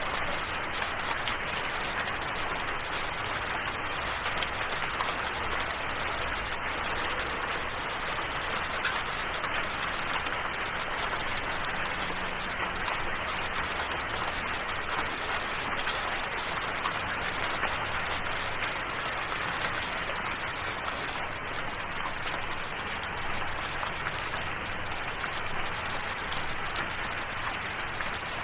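Steady rain falling, an even hiss of drops with no change in strength.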